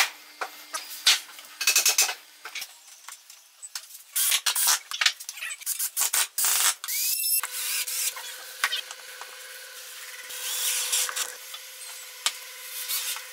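Woodworking shop sounds: a drill running in short bursts as screws are driven to fix a metal drawer slide onto a wooden block, among clicks, knocks and the rubbing of wood and metal parts being handled. A faint steady hum runs through the second half.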